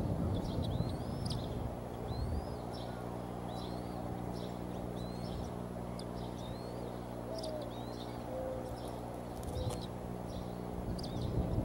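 Bald eaglets peeping, a series of short high rising-and-falling chirps repeated about once or twice a second while being fed at the nest. A low rumble and a steady low hum run underneath.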